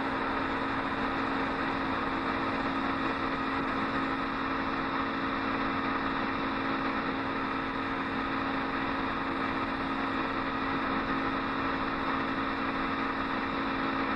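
Steady hum and whir of a film projector running, with a faint hiss and no sound effects under the cartoon it is showing.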